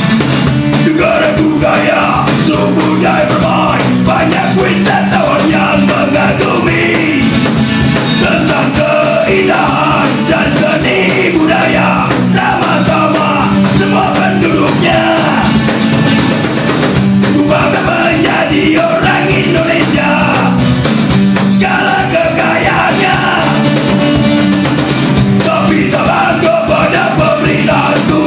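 Unplugged punk rock band playing live: strummed acoustic guitars and a cajon under a male lead singer's loud vocal.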